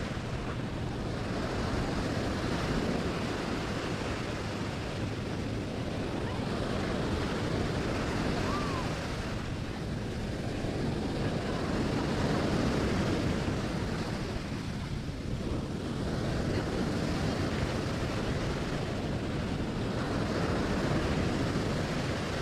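Ocean surf breaking and washing up a sandy beach, swelling and easing every few seconds as the waves come in, with wind buffeting the microphone.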